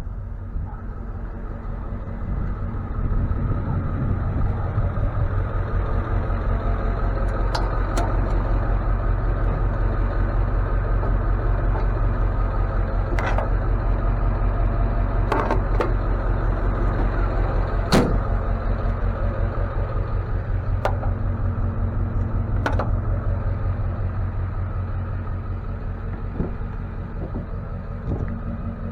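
Tow truck engine running under way, heard from inside the cab as a steady low drone that builds about three seconds in and eases off near the end, with scattered sharp clicks and knocks from the cab or rig.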